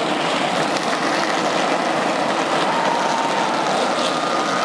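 The full field of NASCAR Cup stock cars' pushrod V8 engines running together on pit road just after being fired up, a loud steady wash of engine noise.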